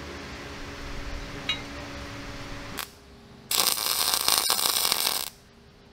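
Steady workshop machine hum, then a MIG welder's arc crackling and sizzling in one burst of about two seconds that stops abruptly.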